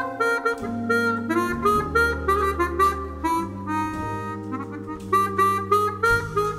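Jazz combo music: a harmonica plays a melody of quick, separate notes over a plucked upright double bass and chords on an electric stage keyboard.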